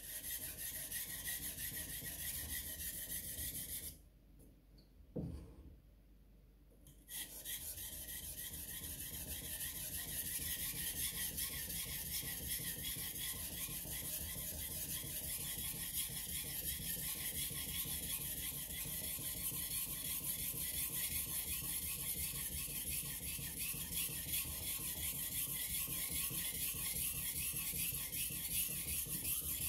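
Takamura Chromax knife's steel blade being sharpened on a waterstone, scraping back and forth over the stone in continuous strokes. The strokes stop for about three seconds a few seconds in, then resume.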